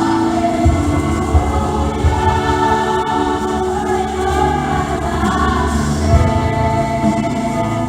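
Church choir singing a Christmas cantata song, many voices together over musical accompaniment with a steady bass.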